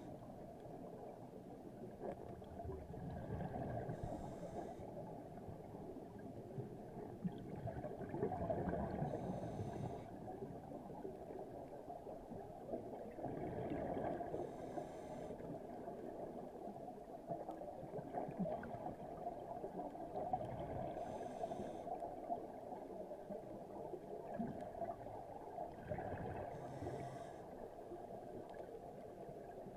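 Scuba diver breathing through a regulator underwater, heard through the camera housing: six breaths, one about every five seconds, each a short hiss with a burst of bubbling from the exhaust, over a steady underwater hiss.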